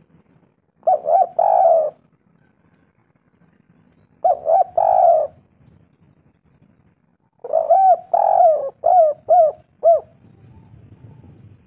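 Spotted dove (tekukur) cooing: three calls, each a couple of quick short coos running into a longer coo. The last call runs on with a string of further short coos.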